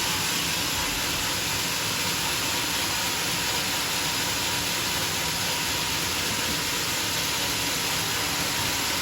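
Homemade sawmill running steadily, a continuous even hiss-like machine noise with no breaks or knocks.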